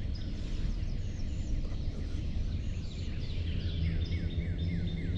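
Small songbirds chirping, a dense run of short downward-sliding calls several times a second with thin higher notes among them, over a steady low hum.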